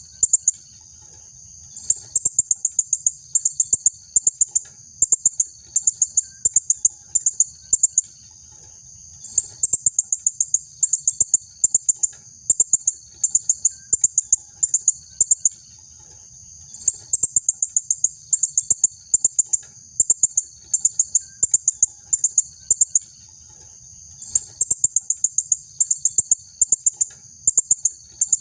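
Female blue-crowned hanging parrot (serindit) calling: rapid series of sharp, very high-pitched chirps, in bouts a few seconds long with short pauses between.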